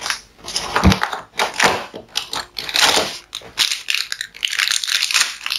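Small crinkly plastic packet being crumpled and torn open, with irregular crackling throughout and a dull thump about a second in.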